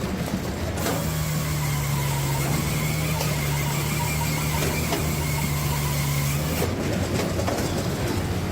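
Wood-splitting machine running: continuous machine noise, with a steady low hum and a fainter high whine that set in about a second in and cut off sharply near the end.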